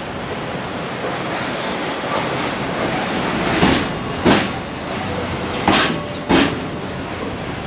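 Freight train of container wagons passing: a steady rumble of wheels on rail, broken by two pairs of sharp clacks, a little before the middle and again later on, as wheel sets cross rail joints.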